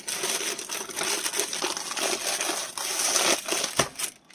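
Plastic wrapping crinkling and rustling as a rolled diamond painting canvas is handled and unwrapped, with one dull knock near the end.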